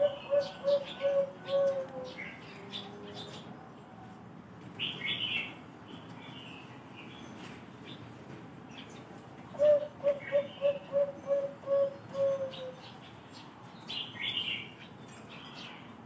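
Caged zebra dove of the Bangkok-bred perkutut song strain cooing. A phrase of about eight short, evenly spaced coos at a steady pitch, roughly three a second, ends in a longer note that slides down. One phrase finishes just after the start and another runs from about ten to thirteen seconds in, with brief higher chirps from other birds in between.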